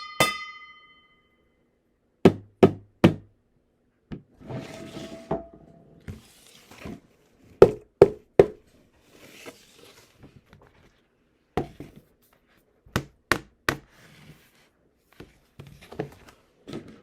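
A metal spoon tapping on a series of containers in quick groups of about three strikes: the small metal pot rings briefly at the start, and the empty container, box and oatmeal container give duller knocks, with some handling noise between sets.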